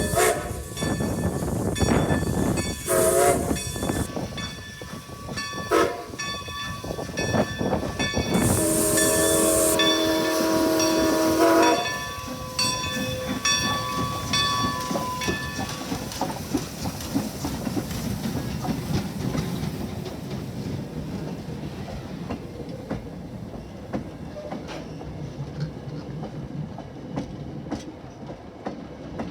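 Train whistle blowing a few short toots and then one long blast of about three seconds with a hiss of steam, followed by the train rolling by with wheels clicking over rail joints, slowly fading.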